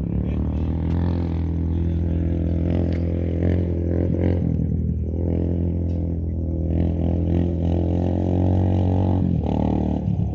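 A motor vehicle's engine running steadily, a low, even drone.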